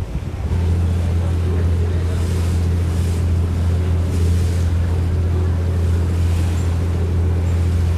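Amazon riverboat's engine running with a steady, loud low drone that sets in about half a second in, over a hiss of wind and water.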